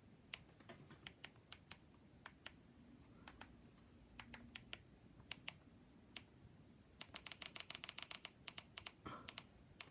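Faint, scattered button clicks, then a quick run of clicks about seven seconds in, as keys or remote buttons are pressed to work a TV box's on-screen menus.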